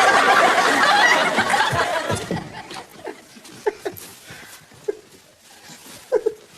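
Studio audience laughing, dying away about two seconds in. A few faint, scattered clicks and knocks follow.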